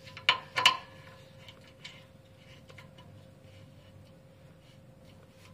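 Screwdriver fastening the mounting screws of a 360 photo booth's spinner motor: two sharp clicks within the first second, then faint scattered ticks over a thin steady hum.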